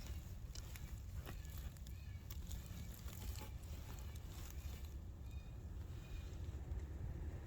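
Low wind rumble on the microphone, with faint short high-pitched calls every second or two and occasional light ticks.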